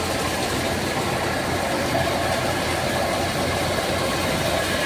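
Tractor-driven thresher running steadily as it threshes guar (cluster beans), with a constant mechanical noise and low hum throughout.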